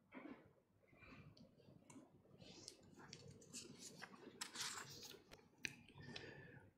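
Faint handling at a lectern close to the microphone: soft rustling and a scatter of small clicks, busiest in the middle, with a couple of sharper clicks near the end.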